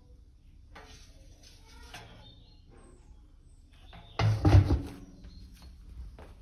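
Parkside wet-dry vacuum being handled and closed: faint rustling and scraping, then about four seconds in a loud clatter of several knocks lasting under a second as the plastic motor head is set back onto the stainless-steel drum, followed by a few lighter clicks.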